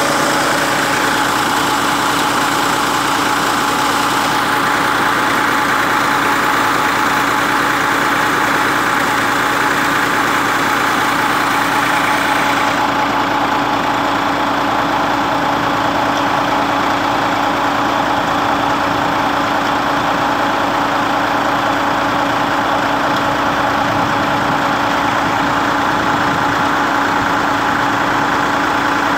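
Ford 4600 tractor's three-cylinder engine running steadily at a constant speed, driving a tubewell water pump, with the rush of water pouring from the pump's outlet pipe into a concrete tank.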